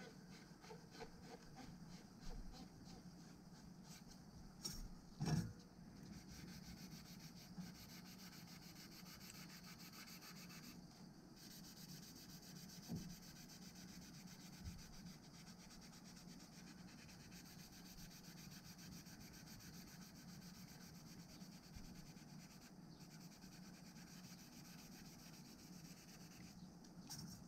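Faint rubbing of a small brush worked back and forth over the coated end of a landing-net handle section, with one short knock about five seconds in, over a steady low hum.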